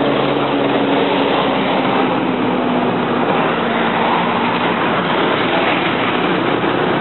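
Steady street noise: a constant rushing sound with a low engine-like hum underneath.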